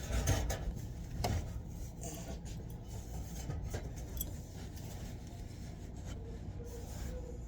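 Hands rubbing and scraping inside a dryer's sheet-metal cabinet while clearing out built-up lint and dust, with scattered light clicks and clinks against the metal.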